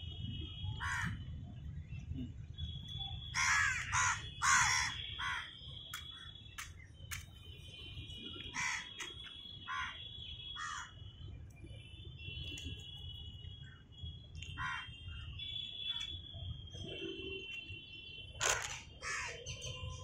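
House crows cawing, a quick run of caws about three to five seconds in and single caws scattered through the rest, with a loud one near the end.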